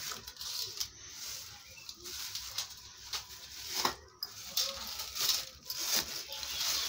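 Thin black plastic carrier bag crinkling and rustling as it is opened and worked over a steel bowl, in irregular crackles with a few sharper ones.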